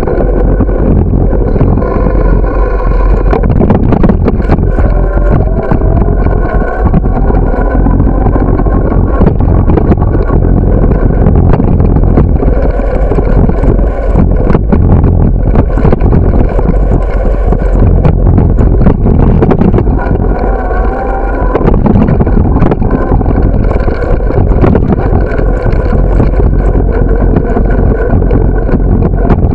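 Loud, steady rumble of riding a bicycle with the camera mounted on it: wind on the microphone and tyre and road noise with a hum underneath, and frequent clicks and rattles as it rolls over bumps and sidewalk joints.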